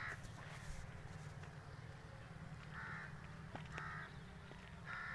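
A crow cawing: four short calls, one right at the start, two close together in the middle and one near the end, over a steady low rumble.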